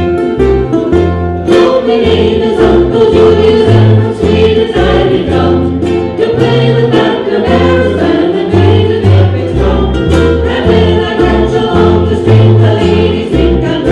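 Ukulele ensemble with bass playing an Irish tune live: many strummed and plucked ukuleles over a walking bass line.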